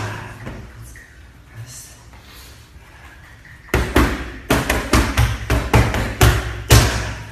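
MMA gloves striking focus mitts. After a quieter stretch, a rapid run of about a dozen sharp slapping impacts starts about halfway through and lasts roughly three seconds.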